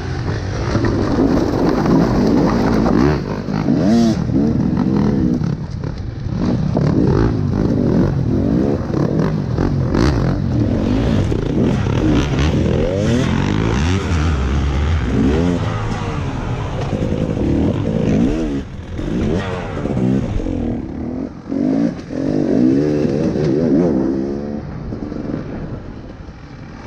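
KTM 300 EXC TPI two-stroke enduro motorcycle engine heard on board, revved up and down in short bursts of throttle, with a few sharp knocks.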